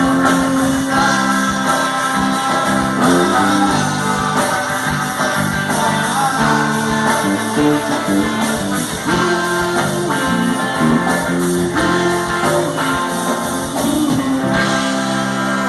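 Band music: a song with guitar, percussion and a singing voice over a steady beat.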